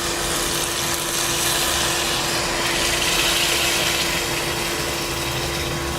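Vegetable masala sizzling in hot oil in a pan while it is stirred: a steady hiss, with a faint steady hum beneath, that cuts off suddenly at the end.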